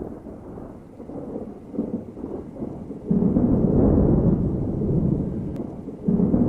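Thunderstorm sound effect played in the attraction's room: low rumbling, then a sudden loud thunderclap about three seconds in that rolls on and slowly fades, and another clap breaking near the end.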